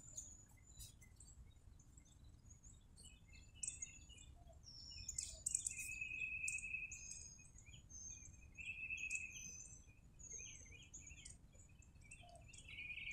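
Songbirds chirping faintly: scattered short high notes and a few longer trills, over a low background rumble.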